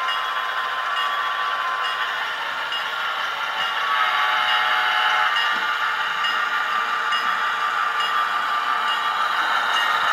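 HO scale P42 locomotive's Tsunami sound decoder playing the FDL16 diesel prime mover sound through the model's small enclosed speaker. It runs steadily and steps up in loudness about four seconds in, as if notching up.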